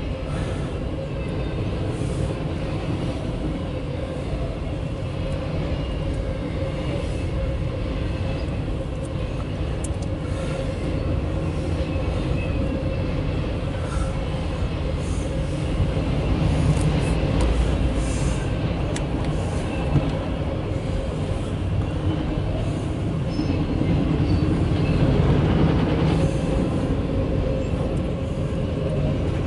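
Autorack cars of a freight train rolling past, a steady rumble of steel wheels on the rails, muffled as heard from inside a car.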